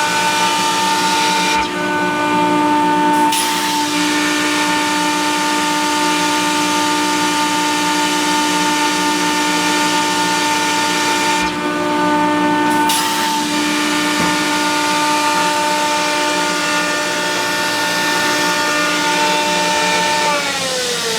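Kaeser CSD 125 rotary screw air compressor, a 125 hp machine, running with a steady whine over a hiss. The hiss drops out briefly twice. Near the end the whine falls in pitch as the machine slows, at the point where it cycles between load and unload, about 105 psi on and 115 psi off.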